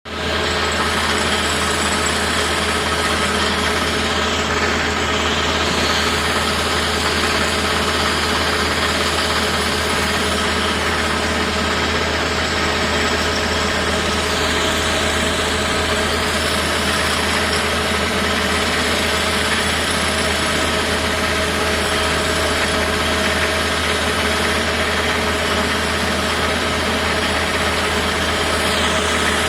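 Construction-site machine engine running steadily at a constant speed, a continuous low hum with a few steady tones over an even mechanical noise.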